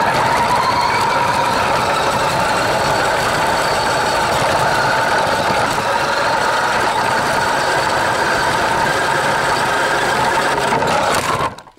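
Electric RC car's motor and gears running at steady throttle, a continuous whine with noise, heard from a camera mounted on the car. It cuts off sharply near the end.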